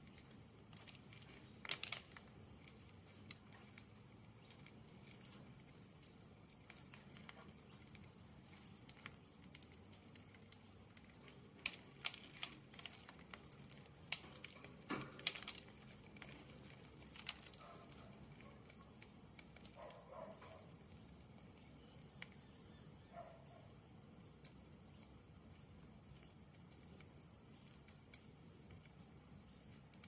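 Budgies cracking millet seeds with their beaks: scattered faint, sharp clicks, busiest in the middle, against a near-silent background.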